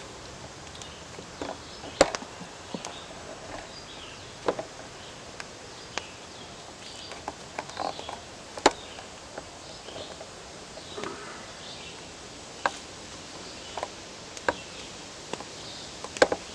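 Outdoor background with scattered sharp clicks and taps, the loudest about two seconds in and again near nine seconds, over faint high chirping.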